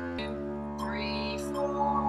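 Double bass bowed arco, playing one long sustained low note that begins just after the start and changes to the next note about two seconds in.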